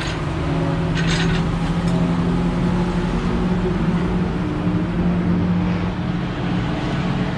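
An engine idling steadily at an even pitch, with a brief rasping hiss about a second in.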